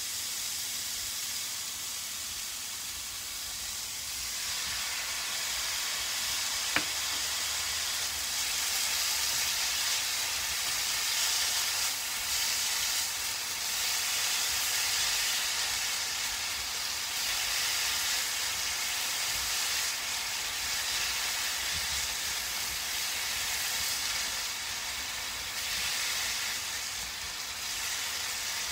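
Julienned burdock root and carrot sizzling in a frying pan as they are stir-fried, the sizzle growing louder about four seconds in. A single sharp click about seven seconds in.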